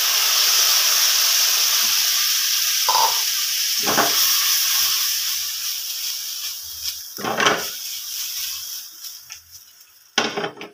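Squid frying in margarine in a hot wok: a steady sizzle that starts as the raw squid goes into the hot fat and slowly fades. Short knocks and rustles come several times as the wok is tossed over the flame.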